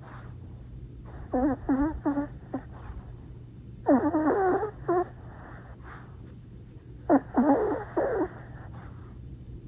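Small long-haired dog vocalizing in three short whines whose pitch wavers up and down, about a second each.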